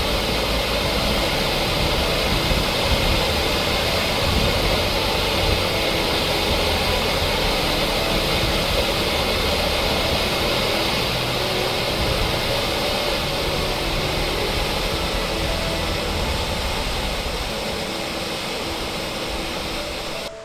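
Waterfall rushing, a loud, steady roar of falling water, with faint music beneath it; it cuts off suddenly at the end.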